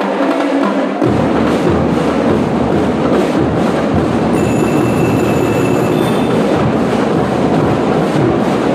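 Drum and lyre corps playing a dense, continuous drum roll, the bass drums joining in about a second in. A thin high tone is held for about two seconds midway.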